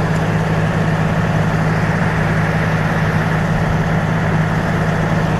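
Bulldozer engine running steadily at a constant speed, a loud even hum with no change in pitch.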